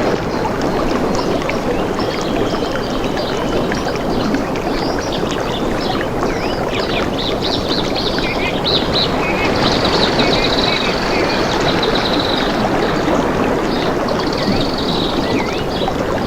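Steady rush of flowing water, with birds chirping and trilling over it; a longer trill comes about ten seconds in.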